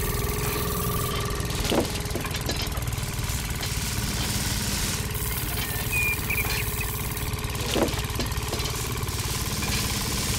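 Small electric motor driving a miniature rice thresher model, running with a steady low drone. Two sharp clicks come through, about two seconds in and again about eight seconds in.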